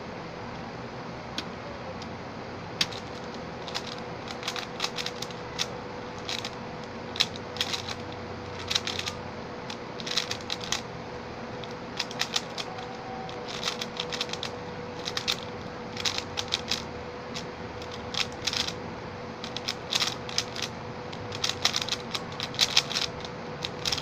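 Stickerless Xin Lexin 3x3 speedcube being turned fast during a speedsolve: its plastic layers clicking in rapid clusters with short pauses between, the clusters coming thicker toward the end.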